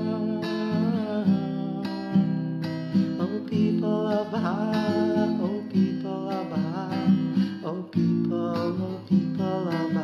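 Instrumental passage of a gentle song: strummed acoustic guitar carrying a melody, with no words sung.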